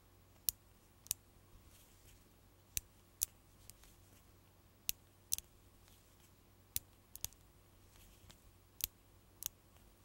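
5 mm magnet balls snapping onto a cluster of balls as a chain of them is laid on, about a dozen sharp, bright clicks at irregular intervals, some in quick pairs.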